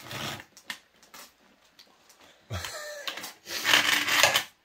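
Hand file, likely a rat-tail, rasping across the edge of a cut steel rose petal to take off the burr: a short stroke at the start, then the loudest filing strokes near the end.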